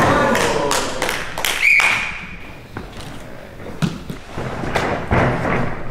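Thuds and taps of a barefoot athlete's hands and feet striking a padded gym floor during a flip, with several sharp knocks in the first second and a half and a few softer thuds later. A short high tone sounds briefly about a second and a half in.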